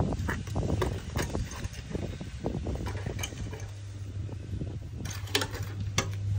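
Handfuls of loose, dry soil mix being scooped from a basin and scattered over a garden bed: a run of crumbly rustles, scrapes and small taps. A steady low hum comes in near the end.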